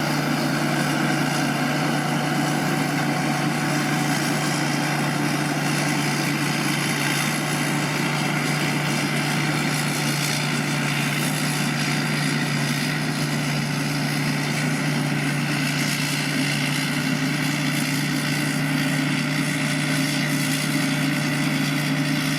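Combine harvester running steadily while harvesting rice: a constant engine hum under a wide whirring, rattling machine noise.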